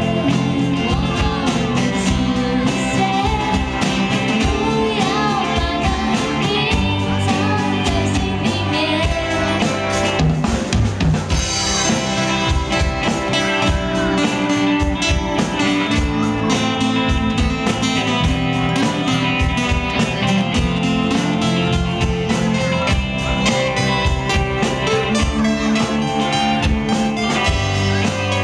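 Live band playing a song: a woman singing over acoustic guitar, bass guitar and a drum kit with a steady beat.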